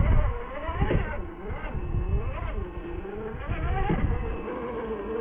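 Traxxas TRX4 RC crawler's electric motor and gearbox whining, the pitch rising and falling again and again as the throttle is worked, over low rumbling and a few knocks from the truck crawling over rock.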